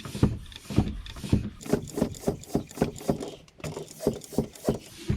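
Bicycle track pump worked in quick strokes, about two to three a second with a short break just past the middle, inflating a tubeless mountain-bike tyre fitted without sealant to seat its bead.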